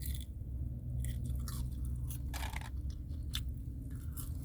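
Close-up chewing of McDonald's french fries, a string of short soft crunches and mouth sounds, over a low steady hum.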